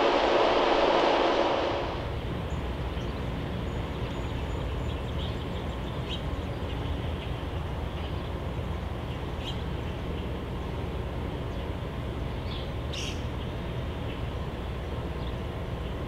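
Outdoor backyard ambience: a loud rushing noise fades out within the first two seconds, leaving a steady low background rumble. Faint, brief bird chirps come now and then over it, a few louder ones near the end.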